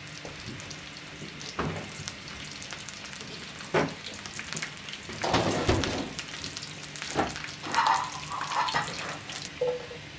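Butter sizzling in a frying pan on a wood-burning stove, a steady fine crackle with several louder pops and crackles scattered through it.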